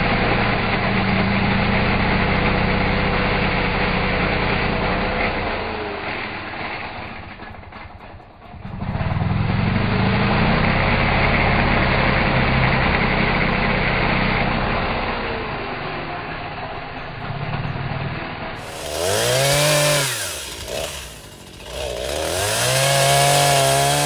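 Echo two-stroke chainsaw cutting under load in two long stretches, its engine note sagging toward the end of each. Near the end the saw is revved up and let back down twice, with the pitch plainly rising, holding and falling.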